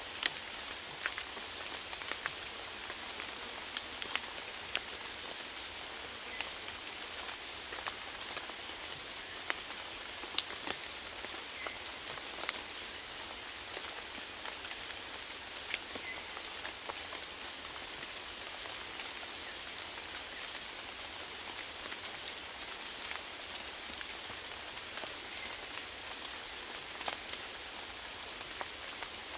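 Steady rainfall, a constant hiss with many individual drops pattering and ticking sharply on a surface.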